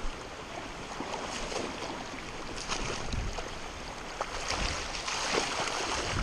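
Shallow creek water running over rocks, with scattered splashes from a hooked salmon in a landing net in the shallows, getting louder about halfway through.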